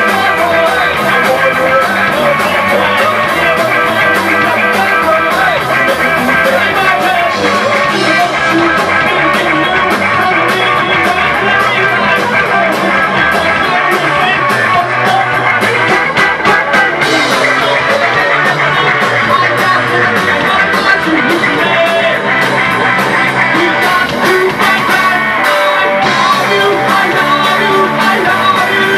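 Live rock band playing loudly and steadily: electric guitar, electric bass and a Yamaha drum kit.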